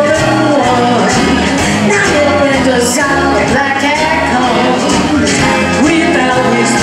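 Live blues band playing: a woman singing lead over electric guitar, electric bass, drums and keyboard, with a steady beat.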